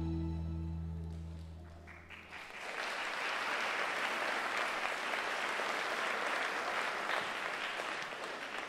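Held music notes fade out, then an audience applauds steadily, the clapping thinning out near the end.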